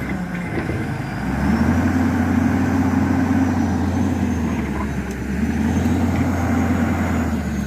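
Hyundai Robex 220-7 excavator's diesel engine running, its note growing louder twice for a few seconds, as it takes load.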